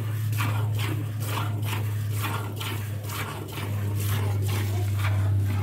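Cow being milked by hand into a plastic bucket: rhythmic hissing squirts of milk, about two a second. A steady low hum runs underneath.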